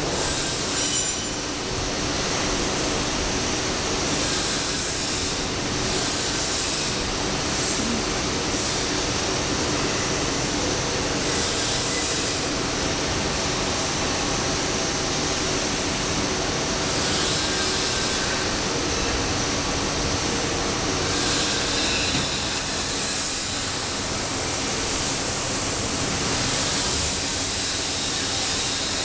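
Steady loud machine noise with a high hiss that comes and goes.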